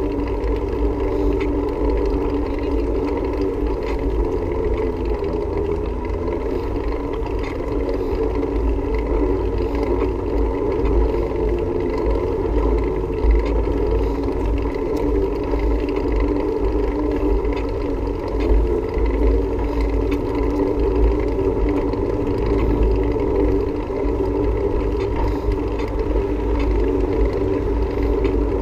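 Wind rumbling on the camera microphone while moving along a path, over a steady whirring drone from the moving ride.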